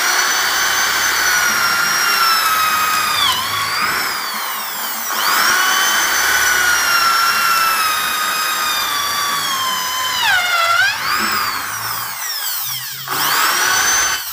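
Corded electric drill with a 14 mm bit boring into the edge of a wooden door, its motor whining steadily. The pitch dips a few times, and the drill spins down about twelve seconds in, then starts again.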